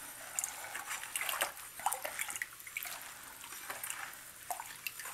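A dye bath of hot water being stirred in a clear plastic tub: faint, irregular swishing and trickling with a few small drips.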